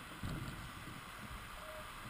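Steady hiss of running water in a shallow rocky stream, with a few low bumps about a quarter of a second in.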